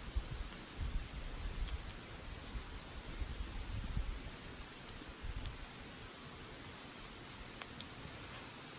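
Wood fire burning in a small folding fire pit: a steady hiss with a few faint, scattered crackles. Wind buffets the microphone with low rumbling gusts in the first half.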